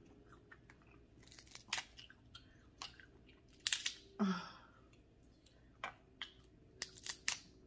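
Close-miked eating sounds: chewing and wet mouth smacks while eating seafood in butter sauce, with irregular sharp clicks and a brief low 'mm'-like vocal sound a little past halfway.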